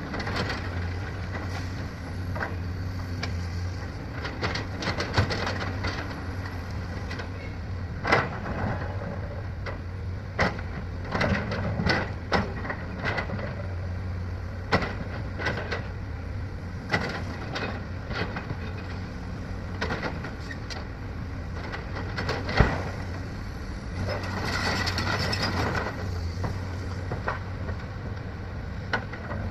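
Heavy earthmoving machinery (excavators and bulldozers) running steadily with a low diesel drone, punctuated by frequent sharp knocks and clanks. A hiss lasts a couple of seconds late on.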